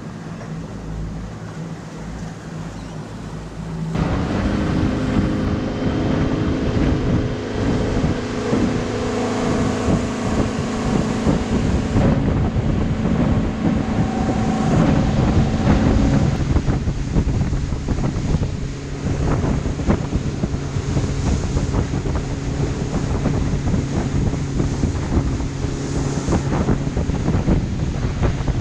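Motor boat under way: its engine running steadily over the rush of water along the hull, with wind buffeting the microphone. About four seconds in, the engine and water noise grow suddenly louder.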